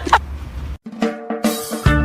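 Background music: a low bass note, a brief drop-out just under a second in, then music with drum hits and held notes.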